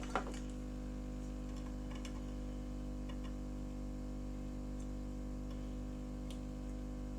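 Steady electrical hum from the repair bench equipment, with a sharp click just after the start and a few light ticks and taps from small tools.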